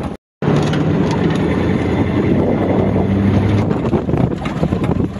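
Heavy wind buffeting the microphone while riding in the open back of a truck, over the steady hum of its engine. The sound cuts out for a moment just after the start.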